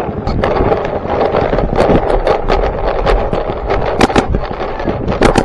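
Paintball markers firing in quick strings of sharp pops, several shots a second, with the loudest cracks about four seconds in and near the end, over a steady rushing noise.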